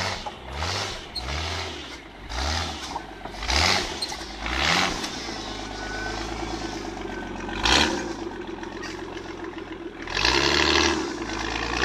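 Jeep 4x4's engine revved in repeated bursts, about eight in all, each rising then falling in pitch, as it works up a muddy slope with its tyres churning in the mud. A sharp crack about eight seconds in.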